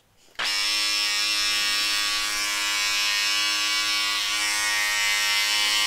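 Electric hair trimmer buzzing steadily, switching on abruptly about half a second in.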